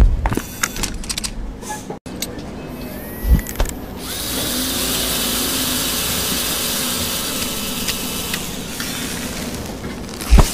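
Sound effects for an animated assembly machine: clicks and knocks of the mechanism and a thump about three seconds in, then from about four seconds a steady spray hiss as paint is sprayed onto a logo. The hiss eases off near the end, just before another thump.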